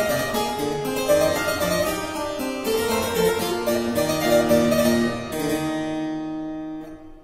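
Instrumental background music: a stream of quick plucked-sounding notes that settles about five seconds in onto a held closing chord, which dies away just before the end.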